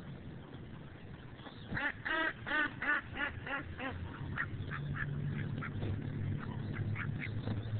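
Ducks quacking. A quick run of about seven loud quacks comes about two seconds in, followed by softer, scattered quacks.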